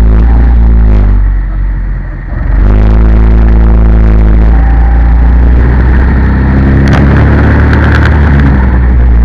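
Engine of a vehicle lapping a race circuit, heard onboard and running hard. About two seconds in, the revs and loudness dip briefly as it comes off the throttle for a corner, then it accelerates back up and holds high revs, with a few short rattles near the end.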